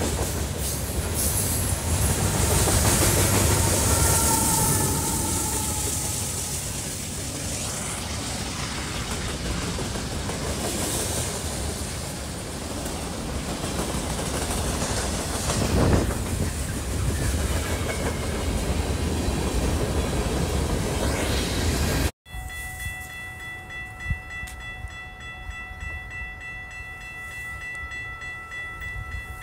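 Freight train of covered hopper cars rolling past close by: a steady rumble and rattle of wheels on rail with some clickety-clack and a single louder clunk partway through. About two-thirds of the way in it stops abruptly, leaving a fainter steady hum made of several thin tones.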